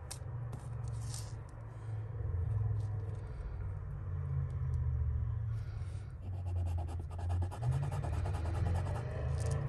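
A small metal jewellery piece being rubbed across a black touchstone to leave a streak for testing whether it is silver: a dry, scratchy rubbing made of many quick strokes, which come thickest in the last few seconds, over a low rumble of the stone shifting on the table.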